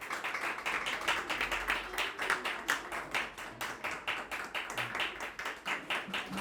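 Audience clapping, a dense run of quick, fairly even claps.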